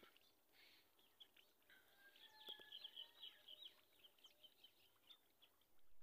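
Faint chirping of small birds, a quick run of high chirps bunched in the middle, otherwise near silence.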